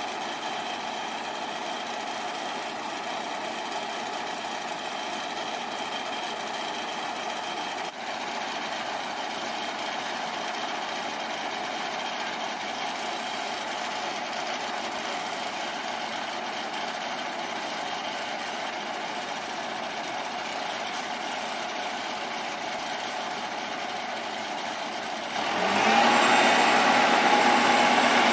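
Diesel engine of a heavy earthmoving machine running steadily, then revving up sharply near the end as the machine goes to work.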